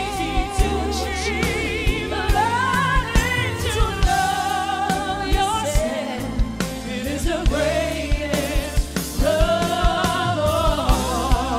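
Live pop ballad: male and female singers taking turns on long held notes with wide vibrato, over a band with bass and regular drum hits.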